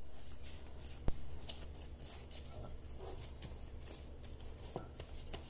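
Soft dough being kneaded in a glass bowl by a hand in a plastic bag: light crinkling, rustling and squishing, with a sharp knock about a second in, over a low steady hum.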